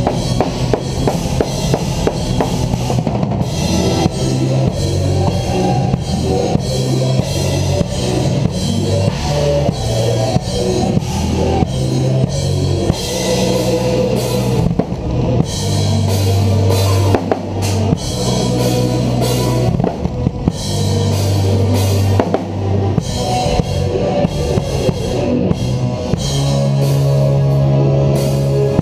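Drum kit played live and close-miked within a full symphonic metal band: a dense run of kick drum, snare and cymbal hits over sustained bass notes.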